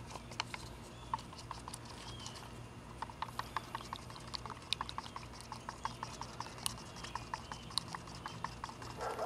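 Stir stick clicking and scraping against a plastic drinking cup while catalyst is mixed into fiberglass resin: a quick, irregular run of light ticks and taps.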